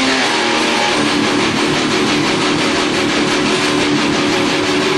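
Two distorted electric guitars played loud through an amplifier, a thick, unbroken wall of sound.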